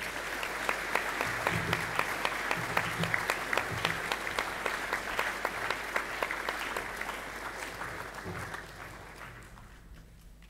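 Audience applauding, many hands clapping steadily, then dying away over the last couple of seconds.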